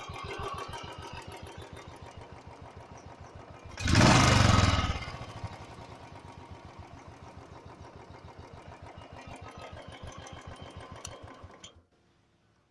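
Royal Enfield Bullet single-cylinder four-stroke engine idling with its even, pulsing thump. It gives a brief loud rev about four seconds in, settles back to idle, then is switched off and stops abruptly near the end.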